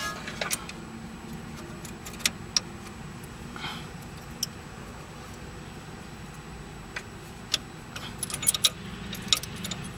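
Scattered light metal clicks and clinks as a lock washer and inner tie rod on a Toyota Camry's steering rack are handled by hand, a few clustered near the end, over a faint steady low hum.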